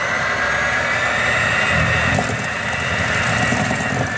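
Electric hand mixer running steadily with a high motor whine, its beaters creaming chunks of butter with sugar in a stainless steel bowl.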